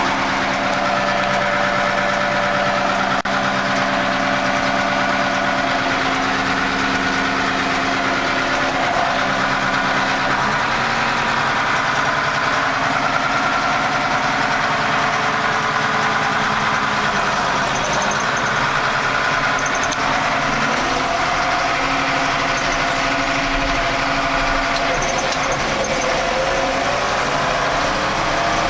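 Case 2090 tractor's six-cylinder diesel engine running steadily as the tractor is driven on the road, heard from inside the cab. The engine note steps to a new pitch about ten seconds in and climbs near the end, as the power shift is worked up through the gears.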